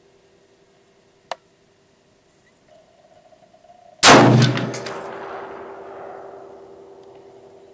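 A sharp click a little over a second in, then about four seconds in a High Standard HSA-15 AR-15 carbine in 5.56 NATO fires a shot, very loud and close, with another sharp crack under a second later and a long echo dying away over the range.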